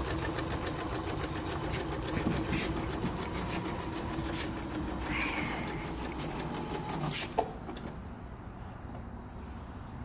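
Kenmore Elite sewing machine running and stitching, its needle mechanism clattering in rapid, even strokes, then stopping about seven seconds in with a short click.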